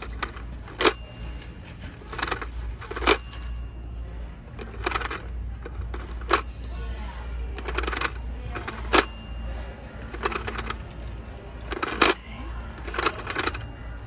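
Plastic rotary dial of a Fisher-Price Chatter Telephone toy being turned and let go by hand, over and over: runs of clicking as the dial winds round and spins back, and five sharp metallic dings with a short high ring.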